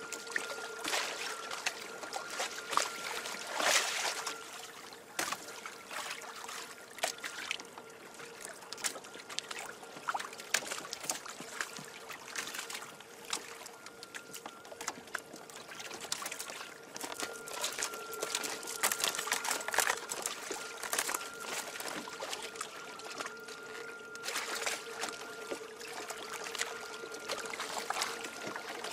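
Water lapping and splashing against the hull of a Hobie Adventure Island sailing kayak, in many small irregular splashes, with a faint steady whine underneath.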